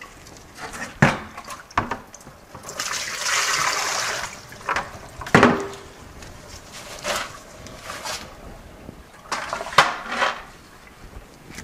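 Water from a garden hose splashing into a plastic bucket in a short run of a second or two, with shorter spurts later. Several sharp knocks and clunks come as the bucket and hose are handled.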